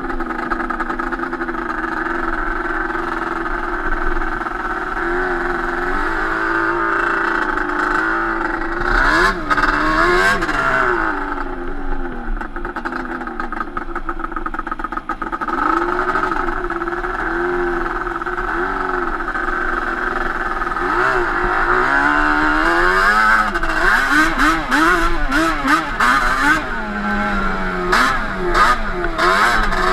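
Yamaha Banshee 350 twin-cylinder two-stroke ATV engine with Toomey T5 expansion-chamber pipes, running under riding load. The revs rise and fall over and over as the throttle is worked, more often toward the end, where a run of sharp ticks also comes in.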